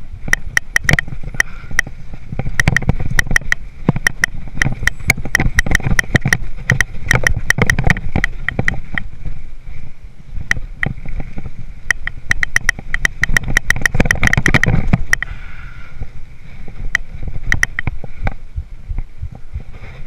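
Hardtail mountain bike rattling over a rough, rocky trail: rapid, irregular clicks and knocks from the chain and frame over a low rumble of the tyres. The clatter thins out after about fifteen seconds.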